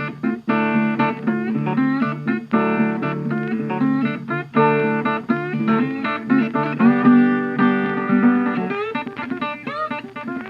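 Background music: guitar, plucked and strummed, with a few bent notes near the end.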